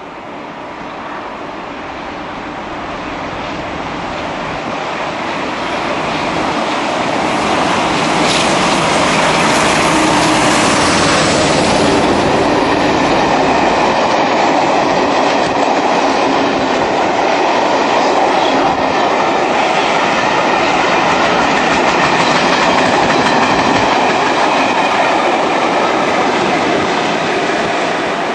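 A Class 47 diesel locomotive hauling a train of Pullman coaches passes at speed. The noise builds over the first several seconds and stays loud as the coaches rush past. A second Class 47 on the rear goes by near the end.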